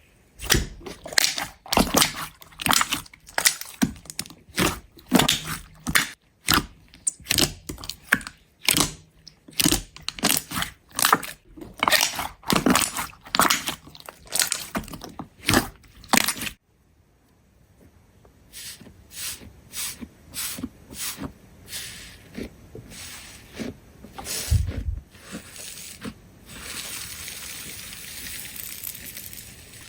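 Slime being squeezed and pressed, giving a rapid run of sharp crunchy pops and crackles. About sixteen seconds in it cuts to a quieter series of clicks, and near the end to a steady crinkling hiss.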